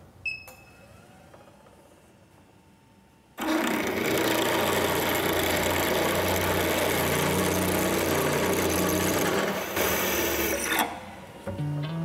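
Drill press switched on with a short beep. A few seconds later a 3/8-inch twist bit at 1,000 RPM cuts into oiled steel: a loud, steady cutting noise that starts suddenly and runs about seven seconds before dropping away.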